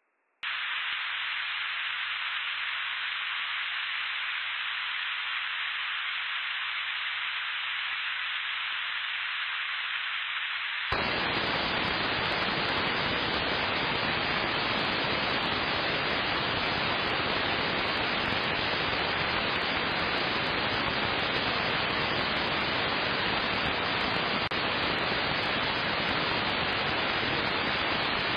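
Shortwave radio static from an online AM receiver: an even hiss with a faint hum, which turns abruptly louder and fuller about eleven seconds in as the receiver is retuned to 4625 kHz, the UVB-76 "Buzzer" frequency. No buzz tones come through the static: the station is off the air.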